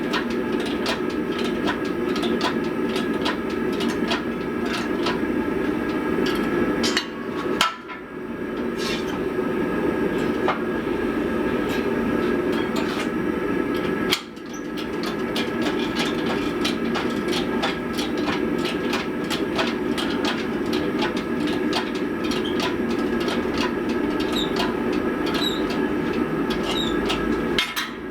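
Rapid, rhythmic hammer blows on a hot damascus steel billet, kept up with two short pauses, over the steady roar of the forge.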